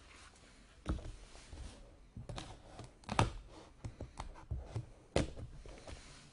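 Hands handling a cardboard trading-card box: a run of scrapes and taps, with a few sharper knocks, the loudest about three and five seconds in.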